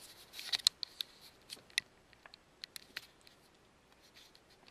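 Light handling noise: a brief rustle, then scattered sharp clicks and ticks, the loudest about half a second in.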